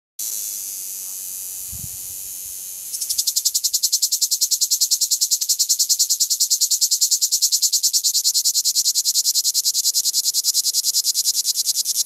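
Cicadas singing: a loud, high-pitched buzz that about three seconds in turns into a fast pulsing drone of about ten pulses a second.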